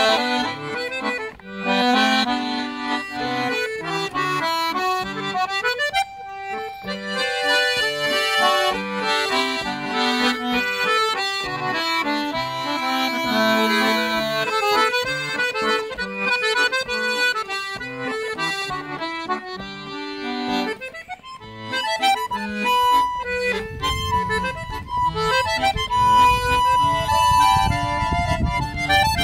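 Piano accordion and button accordion (melodeon) playing a tune together, a quick run of melody notes over chords. A low rumble comes in under the music for the last few seconds.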